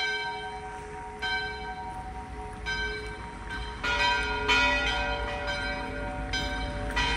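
Church bells ringing: about seven strikes at uneven intervals of roughly a second, each leaving several pitches ringing and slowly dying away.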